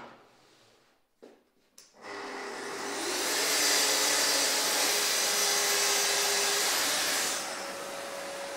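Festool plunge-cut circular saw with dust extraction attached. After a few light clicks, it starts about two seconds in and cuts through a board along a guide rail. It runs loudly for about four seconds, then keeps running more quietly once the blade is out of the cut.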